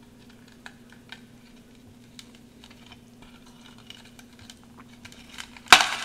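Fingers working packed humidifier-frost snowballs in a glass bowl: scattered light crackles and ticks, then a loud crunch near the end as a stuck-together snowball breaks under the grip.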